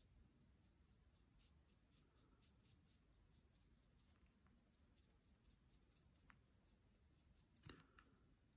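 Very faint scratching of a pencil on paper in short hatching strokes, about four a second, with a soft tap near the end.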